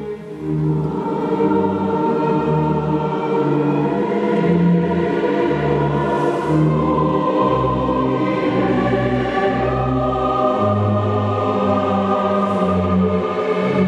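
Massed choir singing with a symphony orchestra, a slow bass line of cellos and basses beneath sustained chords; the sound swells to full volume about a second in.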